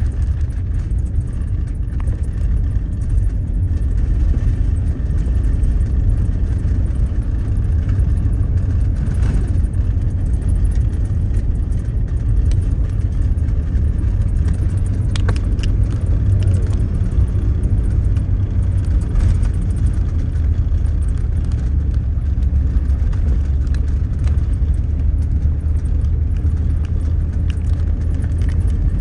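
Car driving along at a steady speed: a constant low rumble of engine and tyres on the road, with a few faint ticks.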